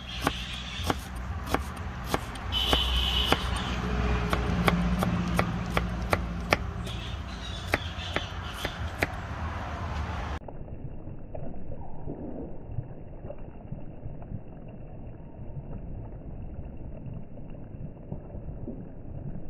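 Kitchen knife chopping an onion on a wooden board: sharp knocks about twice a second for roughly ten seconds. Then the sound cuts abruptly to a duller, steady noise.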